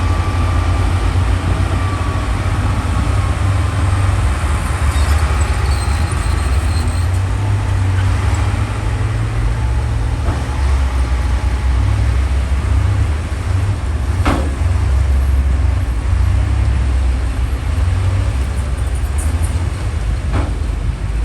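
Heavy diesel earthmoving machinery running with a deep, steady engine rumble, with a sharp clank about fourteen seconds in and another near the end.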